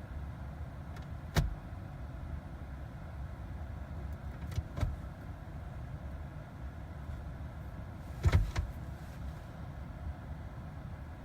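A few sharp clicks and knocks inside a car cabin: one, then two close together, then a short cluster, over a steady low rumble.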